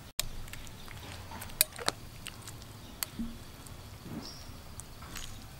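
Metal spoon scooping through soup in a bowl: a few light clicks and wet squishes of broth, the sharpest about a second and a half in.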